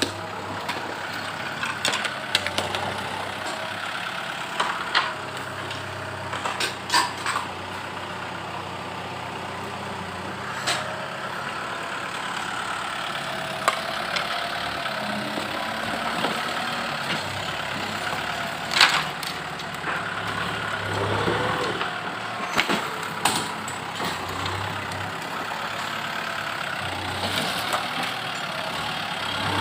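An engine running steadily, with scattered sharp knocks and clatters over it.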